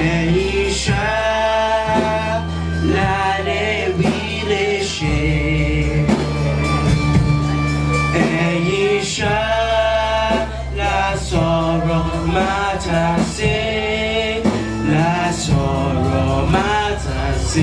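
Church praise song: a singer or choir singing with instrumental accompaniment under it, held low notes and a steady beat.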